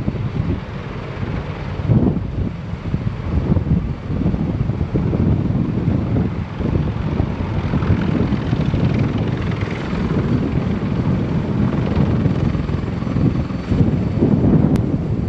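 Several Sikorsky CH-53 heavy-lift helicopters running with rotors turning: a steady, loud rotor and turbine noise with a rapid low chop.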